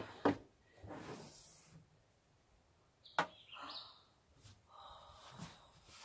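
Quiet clicks and rustling as the lid of a 12-volt Bodega dual-zone portable fridge/freezer is unlatched and lifted open, with one sharp click about three seconds in.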